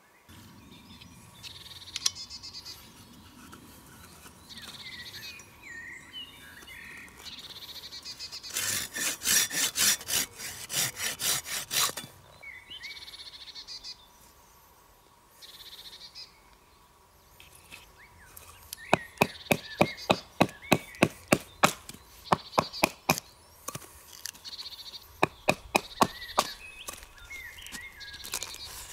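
A knife blade working birch wood in quick rhythmic strokes: a fast run about a third of the way in, then two more runs of sharp cuts, about three or four a second, in the second half. Songbirds chirp throughout.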